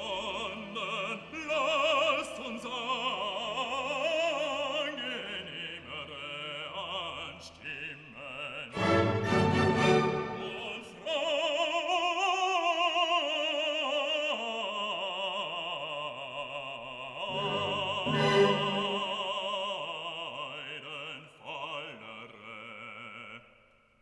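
Background music: an operatic voice singing long held notes with a wide vibrato over an orchestral accompaniment.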